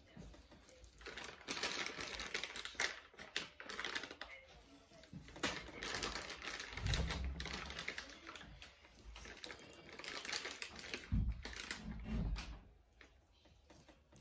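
Plastic piping bag crinkling and rustling as it is handled and fitted with an icing tip, with dull thumps twice, about halfway through and near the end.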